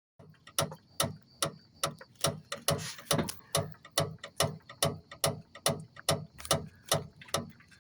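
Mazda Demio front stabilizer (sway bar) link knocking in a steady rhythm, about two and a half sharp knocks a second, as the car is shaken by hand: the link's nut has worked loose.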